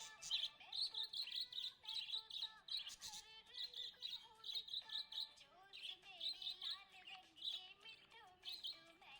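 Budgerigars chirping and warbling: a steady stream of quick high chirps over wavering, gliding chatter.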